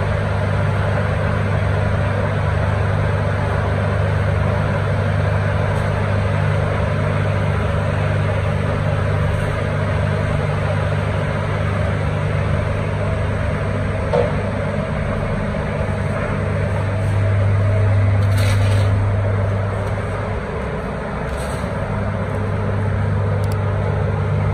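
Steady, loud low machine hum with a brief click about fourteen seconds in.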